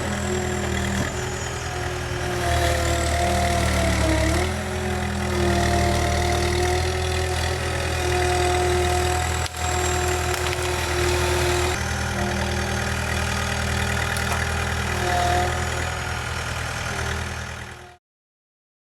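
Skid steer loader engine running steadily, with a whine over it that dips in pitch and breaks off several times as the machine works; the sound cuts off suddenly near the end.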